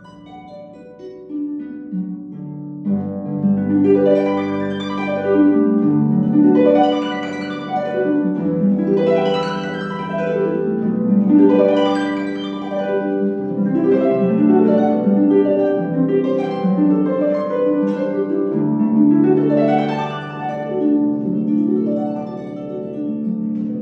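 Concert pedal harp played solo: plucked notes and chords ringing over one another, starting softly and growing fuller within the first few seconds, then swelling and easing in repeated waves.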